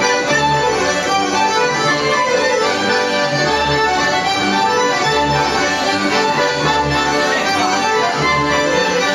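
Live folk band playing a lively dance tune, led by accordion with double bass notes underneath.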